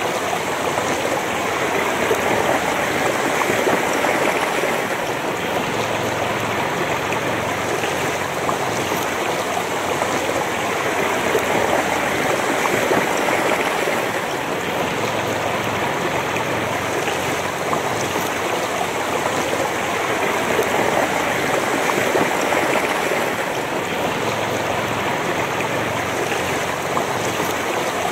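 Shallow river water rushing and gurgling over stones, heard close to the surface. The sound is a steady, even rush.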